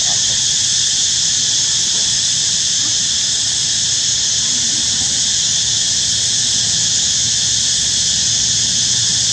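Steady, high-pitched drone of an insect chorus, unbroken and level throughout.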